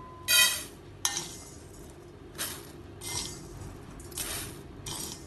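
Steel spoon scraping dry-roasted matta rice out of a cast-iron pan and tipping it onto a stainless steel plate: about six clinks and scrapes, the first, about half a second in, ringing briefly.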